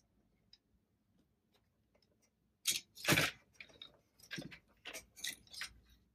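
Plastic 120 mm PC fans being handled on a desk: a cluster of knocks, clicks and rustles that starts nearly three seconds in and lasts about three seconds.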